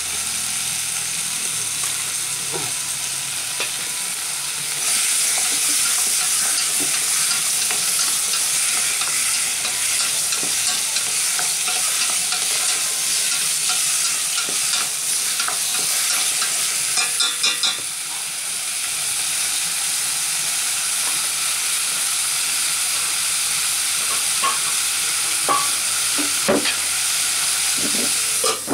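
A steady hissing sizzle from a steel pot of vegetables cooking over an open wood fire, growing louder about five seconds in. About halfway through, chopsticks stirring in the pot make a quick run of light clicks, and a few sharp knocks come near the end.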